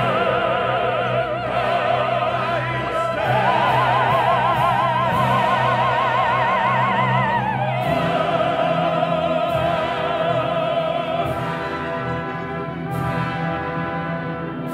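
Operatic soprano singing over an orchestra, her voice pulsing with a wide vibrato. She holds a long high note for about four seconds, then falls to a lower note that she also sustains, with the orchestra holding low notes underneath.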